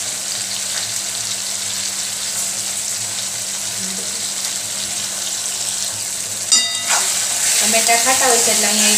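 Sliced green tomatoes sizzling steadily in hot oil in an aluminium kadai. About six and a half seconds in there is a sharp metallic clink that rings briefly, and the sound grows louder soon after.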